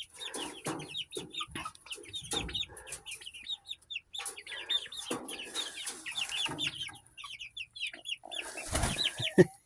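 Young chickens clucking and chirping together, a steady stream of short high falling notes from several birds at once.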